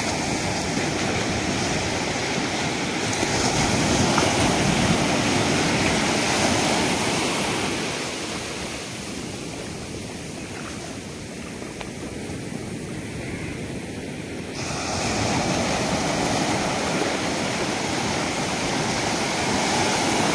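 Sea surf breaking and washing in around the shallows: a steady rush of waves that eases in the middle and swells again in the last few seconds.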